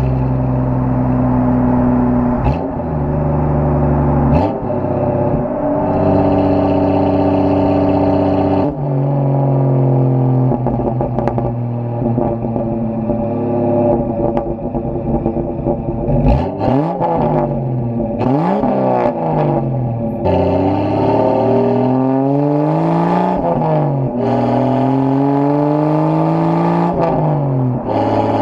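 Straight-piped Jeep Cherokee exhaust under way, muffled through a waterproof camera case. The engine note drops sharply at gear changes about 2.5, 4 and 9 seconds in. From about 16 seconds on it rises and falls through repeated pulls and lifts of the throttle, with a few short sharp cracks.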